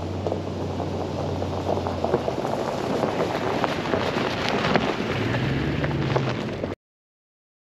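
Toyota Tundra's V8 engine running as the pickup drives over a dirt track covered in dry leaves, tyres crunching and crackling on the leaves and gravel. The engine sound rises as the truck passes close by, then the sound cuts off suddenly near the end.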